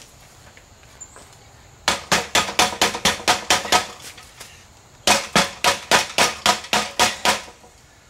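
Mallet hammering on thick green-insulated 6-gauge copper wire laid across a wooden workbench: two quick runs of about a dozen strikes each, about six a second, with a pause of about a second between.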